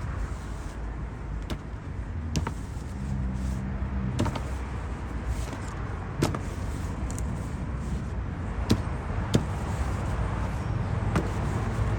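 Hand pruners snipping orange stems: sharp single clicks, about eight of them spaced irregularly over the stretch. Behind them is a steady low rumble, like passing road traffic.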